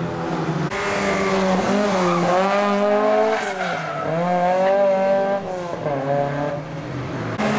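Fiat 131 Racing Group 2 rally car's engine revving hard and backing off again and again, its pitch rising and falling every second or so. About a second in the sound changes suddenly from another rally car's engine.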